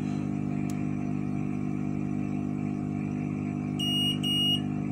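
Multimeter continuity beeper sounding two short beeps, about 4 seconds in, showing that the new HDMI port's pins are making contact with the board. A steady low hum runs underneath.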